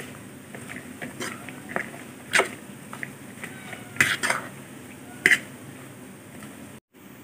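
Metal utensil clicking and scraping against a plastic bowl while tossing banana blossom strips in beaten egg. The clicks are irregular, with the loudest about two and a half, four and five seconds in.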